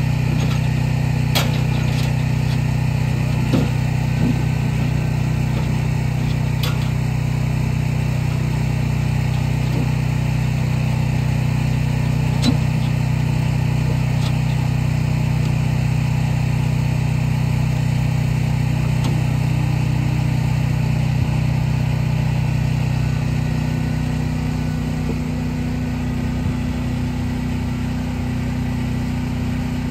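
A steady, low engine-like hum runs throughout, with a few light clicks, dropping a little in level and shifting in tone a little after twenty seconds in.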